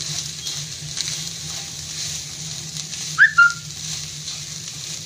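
Cooked rice frying in oil in a pan, sizzling steadily as it is stirred with a wooden spatula, over a steady low hum. About three seconds in, a brief whistle-like chirp, a quick rising-and-falling note and then a short held one, is the loudest sound.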